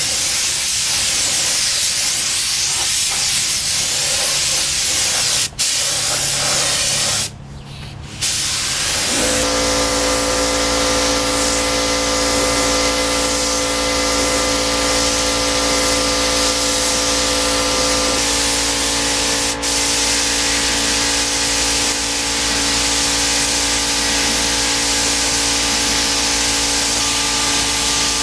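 Air-powered gravity-feed spray gun hissing steadily as it sprays paint onto a motorcycle fairing. The hiss stops briefly twice in the first eight seconds. From about nine seconds in, a steady low hum with several held tones joins it.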